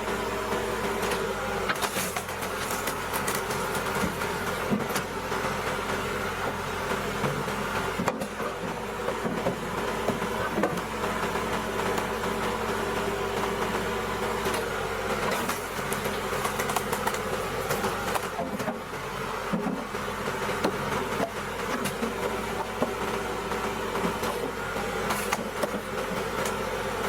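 Large hydraulic wood splitter running: a steady engine and hydraulic-pump hum, with scattered sharp knocks and cracks as logs are worked.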